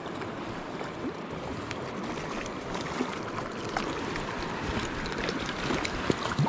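Mountain stream water running steadily, with a few short clicks in the second half.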